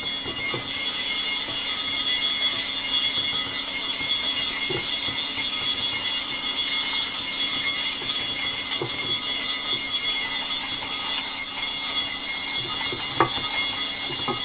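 A machine running steadily: a continuous rushing noise with a high whine over it, and a few light clicks.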